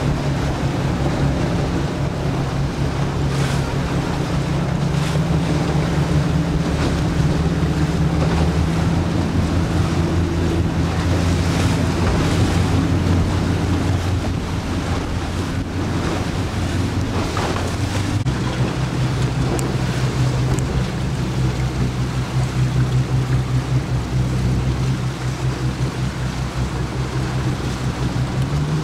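Wind buffeting the microphone over water washing against a boat on a lake, with a steady low hum underneath that shifts slightly about two-thirds of the way through.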